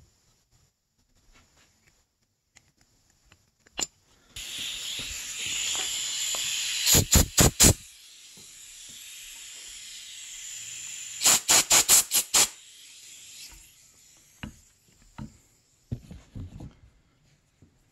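Compressed-air blow gun clearing chips from a freshly tapped grease-fitting hole. After a sharp click, a steady hiss starts about four seconds in. Two runs of quick blasts come a few seconds later, about four and then about five, and the hiss fades out after about fourteen seconds.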